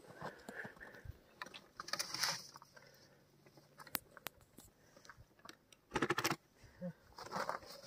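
Faint, scattered crunches, clicks and rustles of boots on icy packed snow as a rider handles a motorcycle lying on its side, with a louder cluster of crunches about six seconds in.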